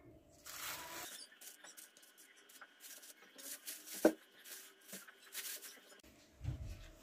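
Soft handling sounds as pieces of marinated pollock are laid by a gloved hand onto sliced onion in a baking pan: scattered rustling and light clicks, with one sharper knock about four seconds in.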